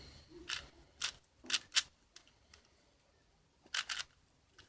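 Puzzle cube layers being turned by hand: a handful of sharp plastic clicks and clacks, several in the first two seconds and a couple more near the end.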